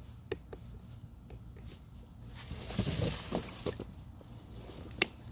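Hands handling a rubber scuba fin and a plastic fin-strap buckle: a few light clicks, a stretch of rustling and scraping in the middle, and one sharp plastic click about five seconds in.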